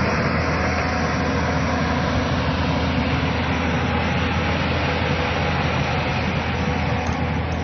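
Excavator's diesel engine running steadily while loading a tipper truck: a constant low engine hum with no change in pace.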